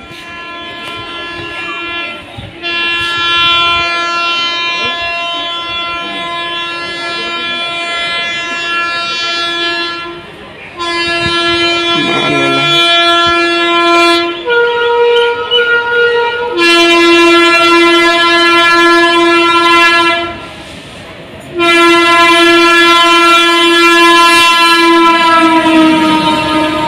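Indian Railways locomotive horn sounding in long, loud blasts, about five of them with short gaps between, one at a higher pitch. In the last blast the pitch slides down as the locomotive passes beneath.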